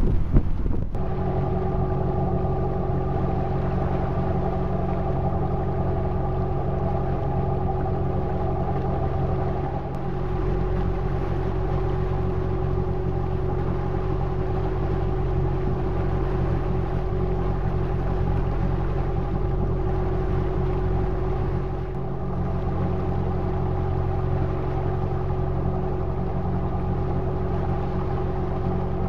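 Wind buffeting the microphone for the first second, then a motorboat's engine running at a steady cruising speed: an even, unchanging drone heard from the helm.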